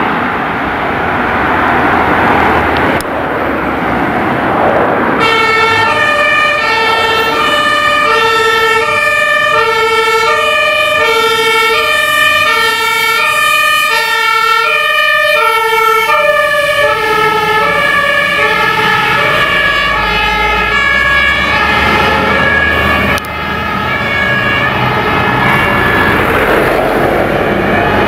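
German fire engine's two-tone siren (Martinshorn) starting about five seconds in, switching steadily between a high and a low note, then dropping in pitch and fading as the truck passes and drives away. Traffic noise before it starts, and the rumble of the truck's engine as it goes by.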